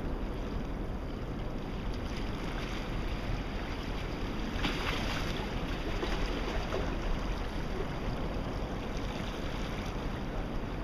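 Steady wind noise on the microphone over small waves washing against shore rocks, with a brief louder rush about five seconds in.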